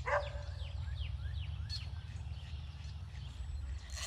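Birds chirping: a string of short, downward-sliding chirps, several a second, over a steady low rumble.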